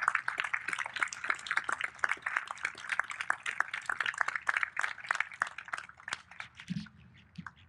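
Audience applauding, many hands clapping together, dying away about six to seven seconds in.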